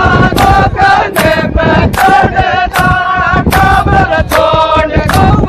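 Loud chanting voices in a repeating rhythm: short held notes, cut by sharp accents about every half second to second.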